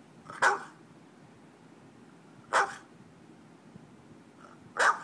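A dog barking three times, single short barks about two seconds apart.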